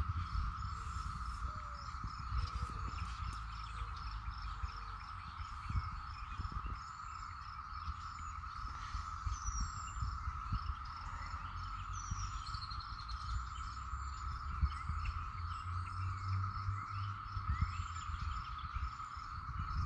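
Outdoor insect chorus: a steady high-pitched drone that never breaks, with a fast, evenly repeating chirp above it and occasional short bird-like calls. A low rumble runs underneath.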